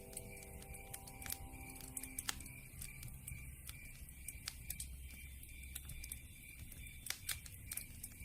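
Campfire crackling: irregular sharp pops and snaps, several close together at times.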